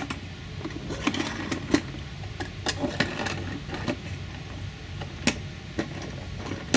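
Steel bolts with nuts being set into 3D-printed plastic spool holders as test weights: a string of irregular metal-on-plastic clicks and knocks over a steady low background hum.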